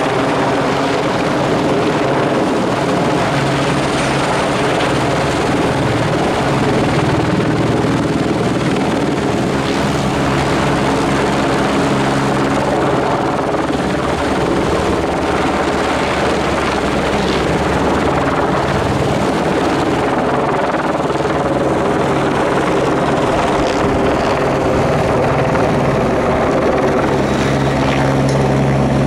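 Helicopter's rotor and engine running steadily overhead at an even, loud level while it holds an underslung load on a long line.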